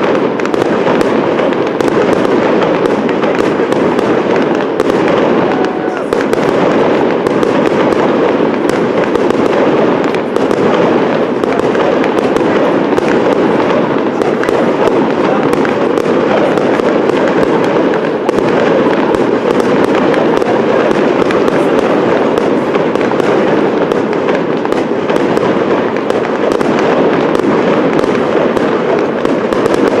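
Fireworks: a pyrotechnic waterfall of falling sparks with crackling stars bursting overhead, a dense, continuous crackle and hiss with no single big bang standing out.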